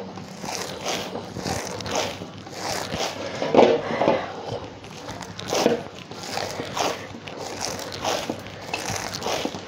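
Hands kneading a stiff urad and moong dal dough in a steel bowl: irregular squelching, pressing strokes about once a second.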